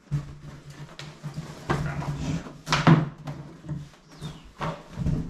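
Cardboard boxes being handled: a series of scrapes, rustles and dull knocks, over a low steady hum.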